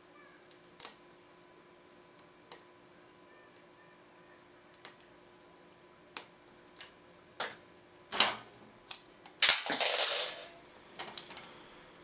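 Lock pick and tension wrench working the six-pin pin-tumbler cylinder of a brass Abus 84/70 padlock: sharp metallic clicks about a second apart, coming faster as it goes on. A longer, louder clatter follows about ten seconds in, then a few small clicks.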